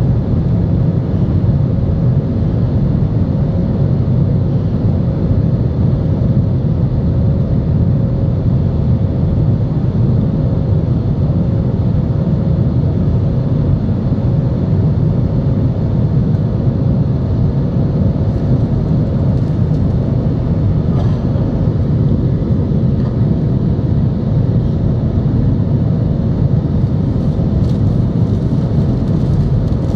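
Cabin noise of an Airbus A320 climbing after take-off, heard from a window seat over the wing: a steady, deep drone of the jet engines and rushing air, with a faint steady hum running through it.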